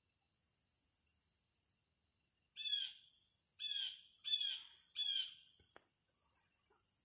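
A bird gives four harsh calls about a second apart, over a faint steady high-pitched insect drone.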